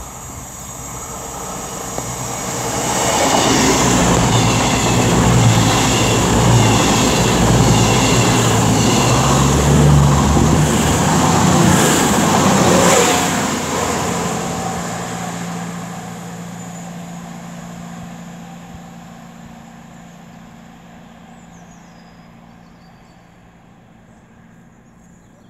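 A train passing through the station at speed. It grows louder over a couple of seconds, stays loud for about ten seconds, then slowly fades away.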